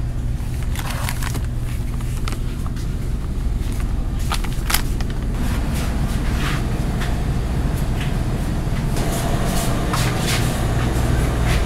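Steady low hum of a grocery store's cooling equipment, with a few light clicks and knocks from goods and a plastic shopping basket being handled.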